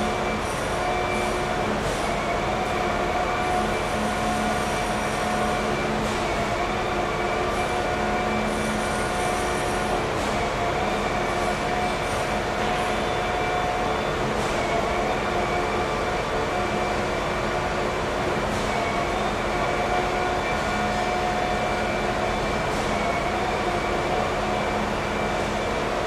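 Steady running noise of a vehicle, with a steady mid-pitched whine throughout and faint high squeals coming and going during the first ten seconds or so.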